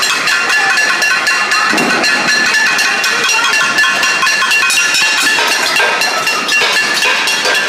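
Metal cooking pots beaten rapidly and continuously with spoons by several people, a dense metallic clanging with ringing overtones: a cacerolazo, the pot-banging protest.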